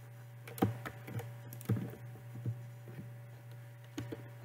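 Computer keyboard keys pressed in irregular single clicks, about eight over four seconds, over a steady low electrical hum.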